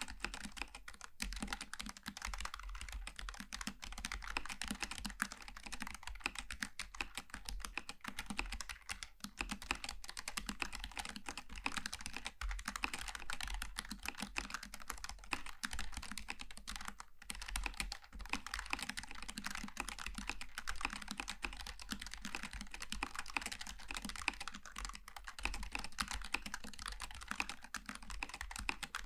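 Typing on a Logitech G915 TKL low-profile mechanical keyboard with tactile switches: a fast, continuous stream of key clicks, with brief pauses about nine and seventeen seconds in.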